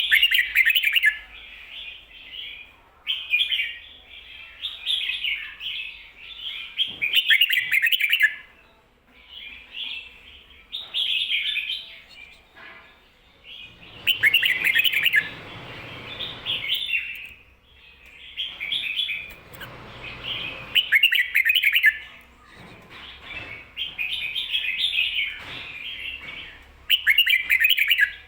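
Red-whiskered bulbul singing, repeating short bright warbled phrases every second or two with brief pauses. This is the doubled "ko-ta-ra" song pattern used as a tutor recording to teach captive bulbuls.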